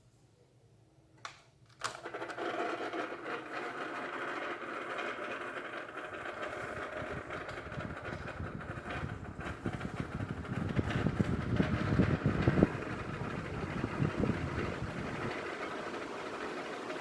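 Regency electric fan switched on with a couple of clicks, then its motor and blades running with a rattling, uneven noise that gets rougher and louder for several seconds before settling back. This is the abnormal noise the owner complains of.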